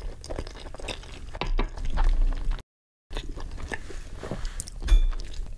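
Close-miked chewing of a mouthful of soft, cheesy lasagna: wet, sticky mouth sounds and small clicks. The sound drops out completely for about half a second midway.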